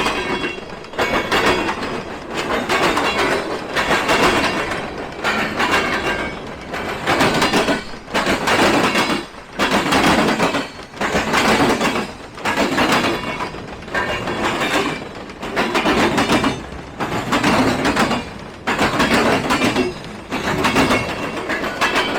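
Freight train cars rolling past, the wheels clattering in a regular beat about every second and a half as each car's wheel sets pass.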